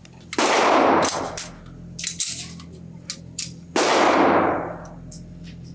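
Two shots from a Sig Sauer P227 .45 ACP pistol fired slowly in double action, about three and a half seconds apart, each ringing on in the reverberation of an indoor range, with lighter clicks between them.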